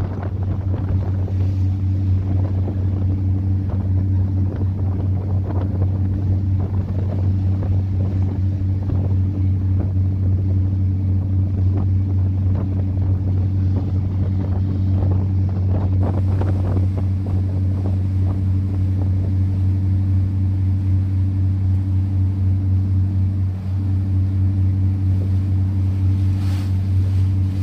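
A tour boat's engine droning steadily at a low pitch, under wind on the microphone and rushing water.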